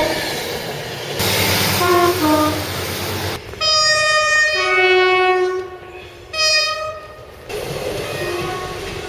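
Train air horns sounding over train running noise: a two-tone horn blast of about two seconds whose notes change partway through, then after a short pause a second, shorter blast of about a second.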